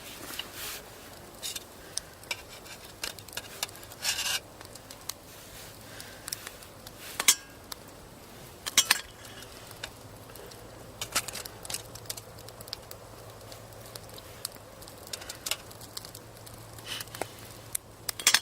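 Cutlery clinking and scraping against pots and dishes while steamed vegetables are served and tasted: scattered light knocks with a few sharper clinks. A faint low hum sets in about halfway through.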